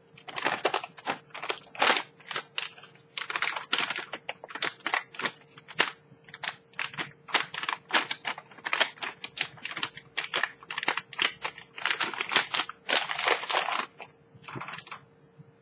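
Anti-static bag crinkling and crackling as it is opened and a circuit card is slid out of it, in quick irregular rustles that thin out near the end.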